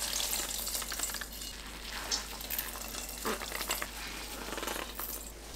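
Tofu being wrung out in a cloth bag by gloved hands, water trickling and dripping into a stainless steel bowl with wet squishing, in uneven pulses.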